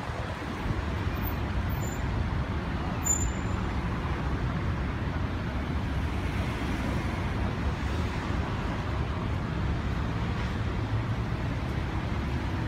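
Road traffic noise: a steady low rumble of car engines and tyres, with no single vehicle standing out.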